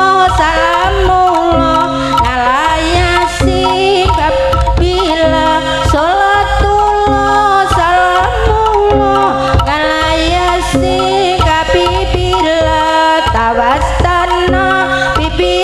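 Live Javanese jaranan ensemble: kendang hand drums beat a steady rhythm under a wavering melody line that slides between notes, over a held ringing tone.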